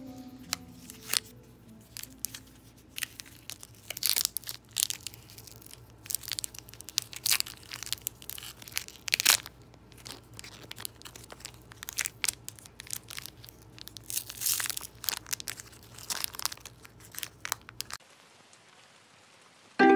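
Crimped plastic candy wrapper crinkling and tearing as it is pulled open and peeled back by hand, in irregular crackles and rustles. It stops about two seconds before the end.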